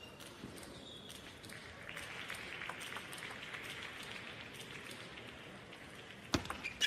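Scattered applause from a small crowd, dying away, then sharp clicks of a table tennis ball off the bat and table as play resumes with a serve near the end.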